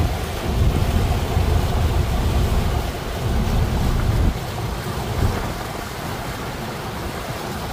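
Wind buffeting the microphone on a moving boat, over a steady rush of water; the low buffeting eases about four seconds in.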